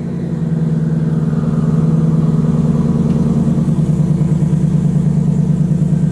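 Turbocharged Ford Mustang Coyote V8 held at raised revs against the transmission brake, building about 6 to 7 psi of boost, heard from inside the cabin. The engine note climbs over the first second or so, then holds steady with a fast pulsing beat.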